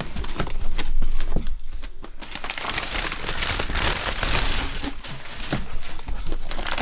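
Newspaper packing being crumpled and pulled out of a shipping box, with continuous irregular crinkling and crackling of the paper.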